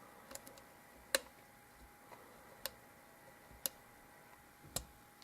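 A handful of sharp little clicks at irregular intervals from a lock pick working the pins of a Zeiss Ikon euro cylinder during single-pin picking.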